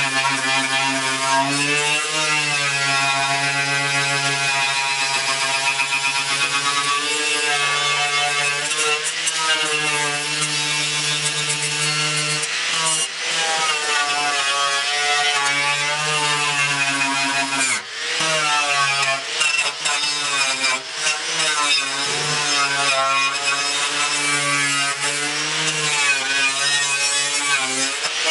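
Electric angle grinder with a wire wheel scrubbing rust and paint off a steel truck grille: a steady motor whine whose pitch sags and recovers as the wheel is pressed into the metal, over a harsh scratching hiss. The sound drops briefly about 13 and 18 seconds in as the wheel is lifted or shifted.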